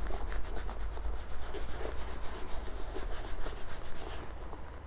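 Quick, repeated rubbing strokes across a Louis Vuitton monogram canvas handbag as leather balm is worked into it to condition it. The strokes ease off about four seconds in.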